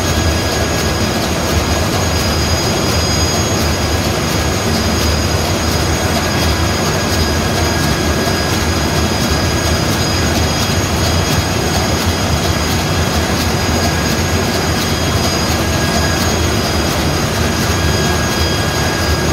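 Marine diesel engine running steadily under test: loud, unbroken engine-room noise with a deep low rumble and a few thin, steady high-pitched whines on top.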